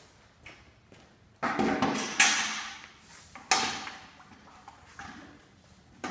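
A paint roller on an extension pole being dipped and worked in a metal pail of floor coating: two loud noisy bouts, each starting suddenly and fading over a second or so, then a short knock near the end.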